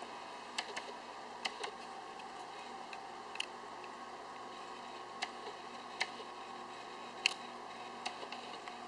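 Irregular sharp ticks and small taps, about a dozen spread through, over a steady faint hum.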